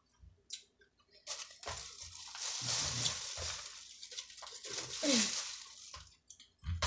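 Close-up wet eating sounds: squishing and slurping of food near the microphone, with a few small clicks.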